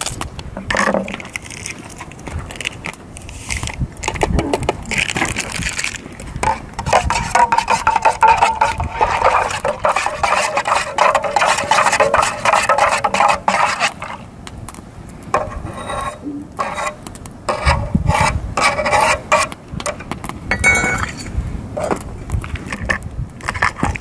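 Metal utensils clinking and scraping in a metal camping pot as instant coffee is stirred into hot water. A dense stretch of scraping and ringing runs through the middle, with scattered knocks and clinks around it, including the pot lid being set down.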